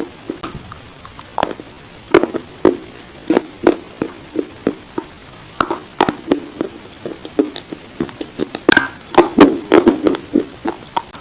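Dry baked clay pot pieces being bitten and chewed close to the microphone: irregular crisp crunches, a few a second, thickest near the end.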